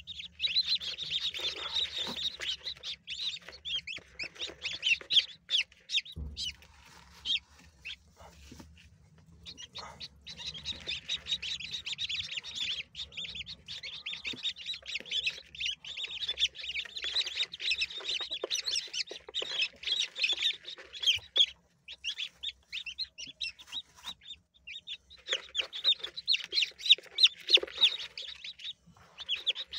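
Brahma chicks peeping in fast, shrill, continuous runs, broken by two short lulls, while they are being settled under a broody hen.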